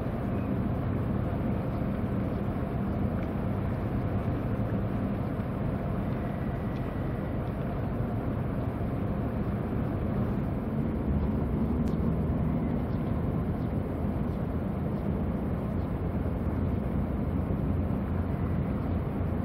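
Steady low engine drone of a large container ship under way, with its attending tug, heard across the harbour water.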